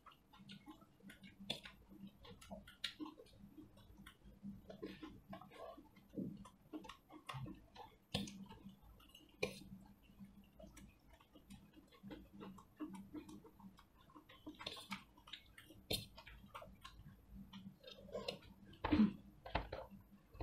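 Close-up eating sounds from rice and noodles: chewing with scattered small wet clicks and ticks, irregular throughout, and a few louder soft knocks near the end.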